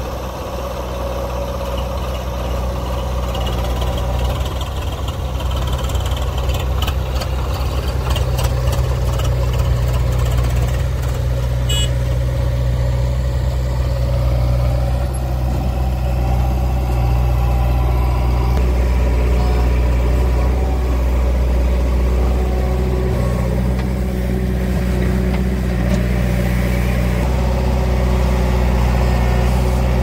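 Diesel engines of a JCB 3DX backhoe loader and farm tractors running steadily, a deep low drone that grows a little louder over the first several seconds, with a few faint clicks between about seven and twelve seconds in.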